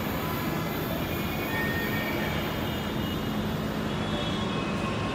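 Hyderabad Metro electric train running on the elevated track out of sight, a steady rumble with faint high squealing tones from the wheels.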